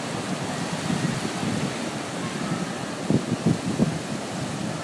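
Ocean surf breaking and washing up the shore, a steady rushing noise. Wind buffets the microphone in low gusts, hardest in a few sharp bumps a little after three seconds in.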